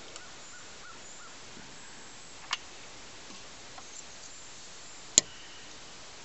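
Handling noise from a die-cast toy airliner being turned in the fingers: a few sharp clicks over a steady hiss, with the loudest click about five seconds in.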